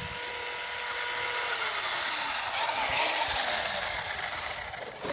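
Electric motor of a battery-powered RC truck whining steadily, then falling in pitch as it winds down, with a hiss that swells in the middle.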